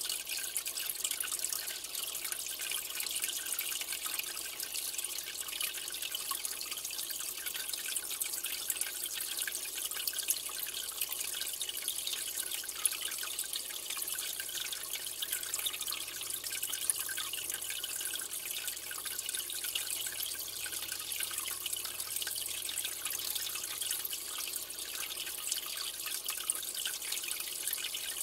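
Aquarium water trickling and splashing steadily, a fine hiss with many small drips.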